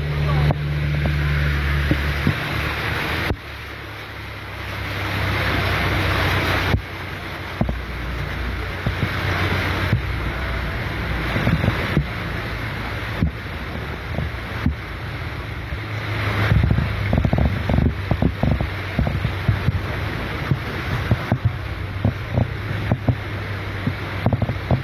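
A car driving through deep flood water in hurricane rain: water sloshing and splashing around the tyres, with heavy wind noise on the microphone and a low engine hum underneath. From about the middle on, a busy patter of small splashes and knocks comes in.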